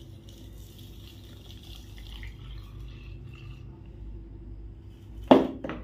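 Milk poured from a steel jug into a plastic blender jar, a faint steady pouring hiss. Near the end comes a single loud knock.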